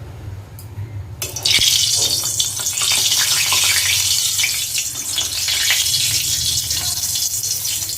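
Water running from a kitchen tap for about six seconds, starting a little over a second in and stopping near the end.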